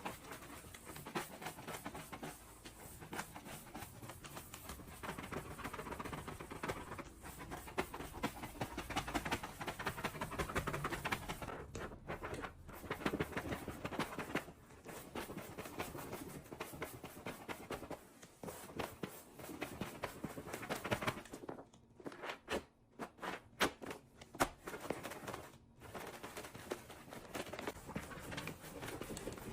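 Household cleaning sounds: uneven rubbing and scraping noise with many scattered taps and knocks, more stop-start in the second half.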